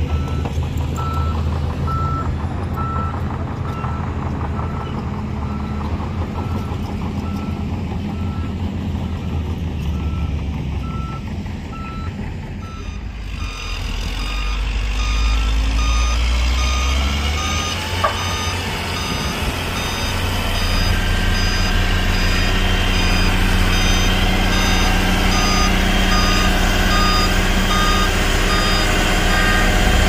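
Heavy diesel earthmoving machinery running with a reversing alarm beeping steadily. About halfway through, a second, higher-pitched reversing alarm joins and the engine rumble grows louder. A single sharp click comes about two-thirds of the way through.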